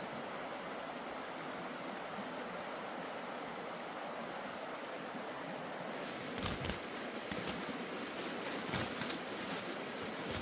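Steady outdoor rushing noise. About halfway through it is joined by close, irregular rustling and crackling of leaves and plant stems, with a few soft thumps, as someone works among the garden plants by hand.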